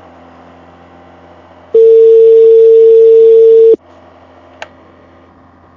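Phone ringback tone as a call is placed: one loud, steady beep lasting about two seconds, starting about two seconds in, over a faint low hum. The call is ringing and has not yet been answered.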